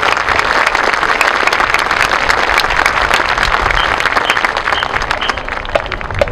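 Stadium crowd applauding, the clapping slowly thinning and growing quieter toward the end, with a few short high pips near the end.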